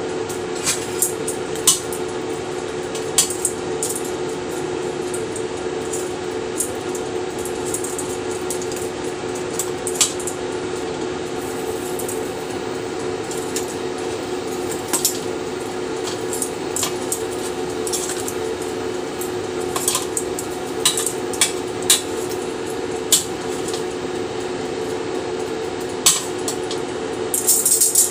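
Metal kitchen tongs clicking and scraping against chicken pieces and the air fryer basket as the pieces are turned, in scattered sharp clicks over a steady hum.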